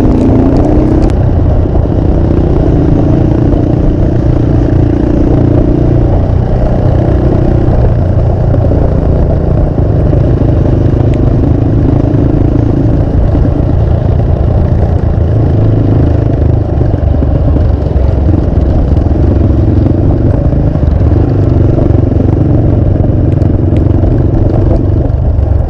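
Motorcycle engine running at light, steady throttle while riding, under a heavy low rumble.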